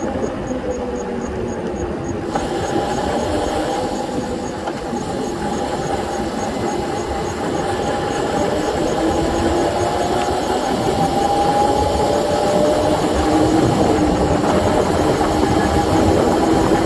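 Razor 750 W electric bike being ridden, its motor whining at a pitch that drifts slowly up and down with speed. Steady wind noise on the microphone and tyre noise run underneath.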